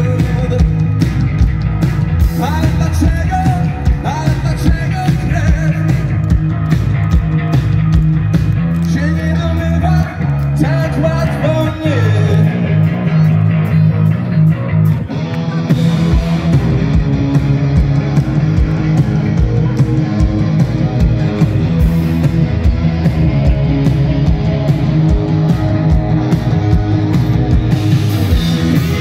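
Live rock band playing through a PA, with drums, guitar and some singing. The drums thin out briefly near the middle, then the full beat comes back.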